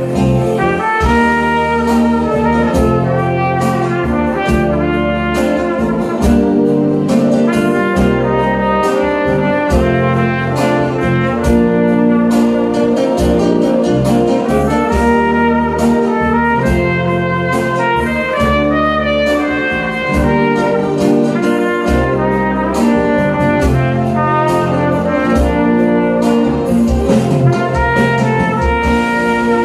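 Trumpet playing a song melody in held and moving notes, over a backing track with a bass line and steady percussion.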